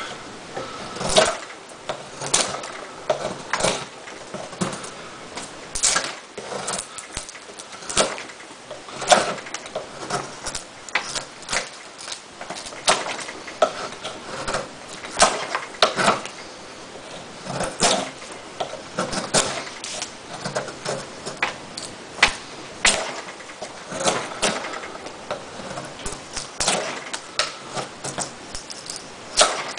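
S30V steel blade of a Benchmade Mini Dejavoo folding knife carving into a block of wood, one sharp cut and crack of a chip breaking loose after another, irregularly, about one or two a second.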